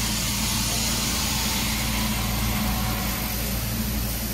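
Gas-heated continuous frying machine running: a steady low mechanical hum with its burner lit.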